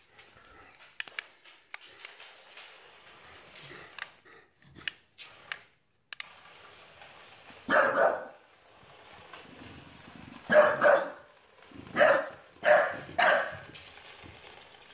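A bulldog barking: a run of loud, short barks in the second half. Before them come faint clicks and ticks from the plastic tracks of a small remote-controlled toy robot rolling on a wooden floor.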